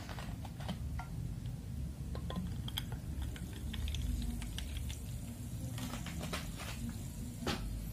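A bottle of fizzy drink being opened and poured over ice into a glass: liquid splashing and fizzing, with small clicks and clinks of glass and a sharp clink near the end, over a steady low hum.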